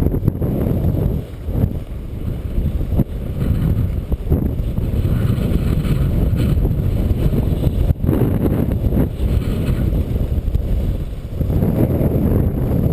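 Strong gusty wind buffeting an action camera's microphone: a loud, low rumble that swells and dips every second or two.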